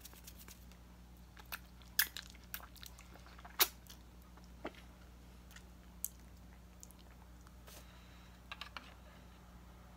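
Scattered wet mouth clicks and smacks as sticky edible residue is licked off the fingers, the loudest about three and a half seconds in.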